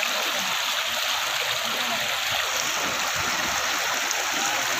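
Fast-flowing floodwater rushing, a steady, even hiss of churning river water.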